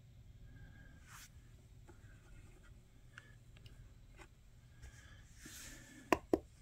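Small plastic clicks and rustles of hands handling wire connectors and switch fittings on a battery-converted G-scale model locomotive, with two sharp clicks close together near the end.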